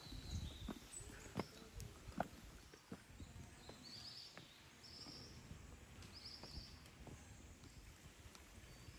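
Faint footsteps knocking irregularly on a rough stone-paved mountain path. Small birds trill briefly in the background a few times between about four and seven seconds in.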